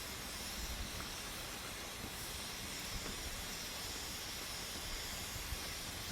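Campfire burning: a steady hiss with a few faint crackles.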